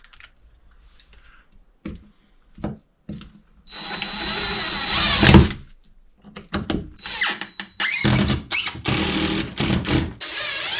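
A few sharp knocks, then a power drill running for about two seconds with a steady whine, followed by a run of irregular scraping and rubbing of tool work.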